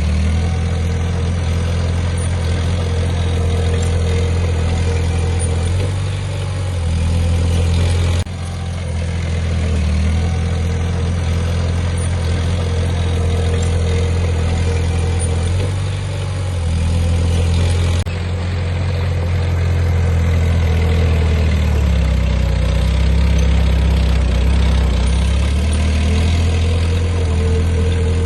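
Heavy diesel engine of earthmoving machinery running steadily, its low note shifting a little up and down with load. The sound changes abruptly twice, about a third and two thirds of the way through.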